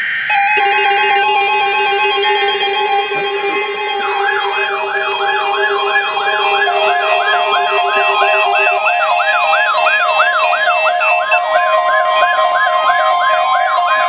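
Several NOAA weather radio receivers sound their alert alarms together, triggered by the Required Weekly Test. Layered steady and pulsing beep tones start about half a second in. About four seconds in they are joined by a fast siren-like warble, roughly two and a half sweeps a second.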